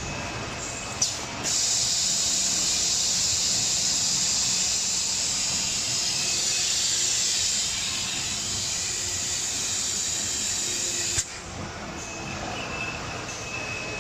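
Pneumatic cartoning machine running with a steady high whine; about a second and a half in, a loud hiss of compressed air starts, holds for about ten seconds and cuts off sharply with a click.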